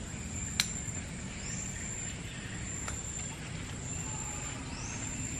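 Outdoor ambience: a steady low rumble under a constant high whine, with a few short rising chirps and one sharp click about half a second in.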